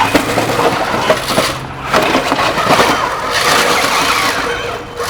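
Combat robots fighting: drive motors running with a steady whine under repeated clattering and scraping of the robots' parts against each other.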